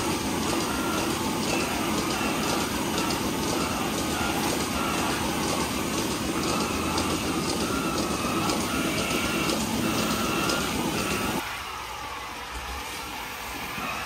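Steady mechanical noise of a DeLaval milking parlour running, its vacuum system and milking units hissing. The noise drops noticeably quieter about eleven seconds in.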